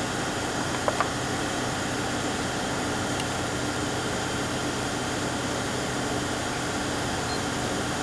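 Steady machine hum with a hiss, like a ventilation fan running, with two small clicks about a second in.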